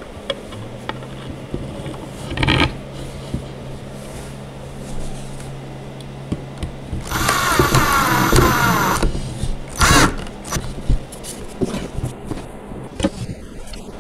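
Cordless drill driving a screw into a wooden stand, running for about two seconds starting around seven seconds in. Around it, clicks and knocks of wooden parts being handled, over a faint steady hum.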